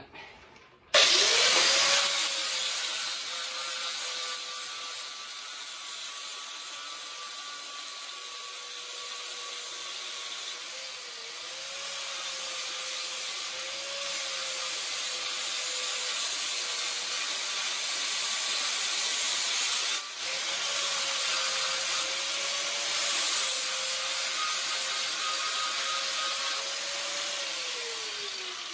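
Handheld electric angle grinder starting up about a second in and grinding metal, its motor note dipping and recovering as the disc bites. It is switched off near the end and its pitch falls as it winds down.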